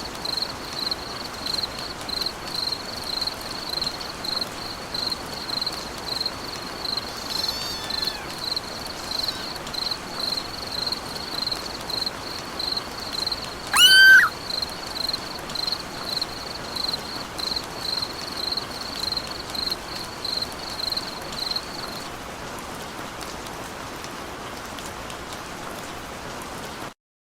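Steady rain falling, with a high chirp repeating about twice a second that stops about 22 seconds in. About 14 seconds in, a brief loud call glides up and down. The rain cuts off suddenly near the end.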